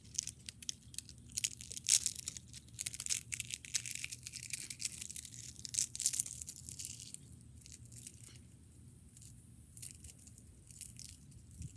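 A dry leaf crumbled between fingers close to the microphone: dense, crisp crackling for about seven seconds, then thinner, scattered crackles.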